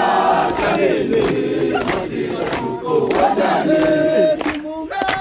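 A group of people singing and chanting together, several voices holding and sliding notes over one another.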